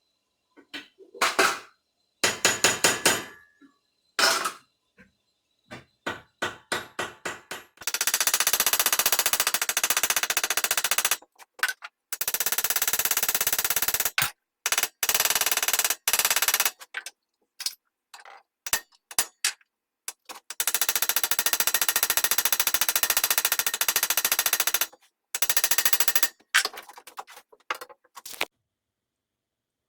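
Metal being struck in a workshop: a few separate blows with short ringing, then long runs of very rapid, evenly repeated strikes lasting a few seconds each.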